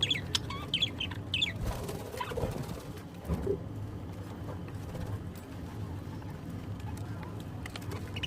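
Birds calling in short high chirps, several in quick succession in the first second and a half, with a few soft clicks over a steady low hum.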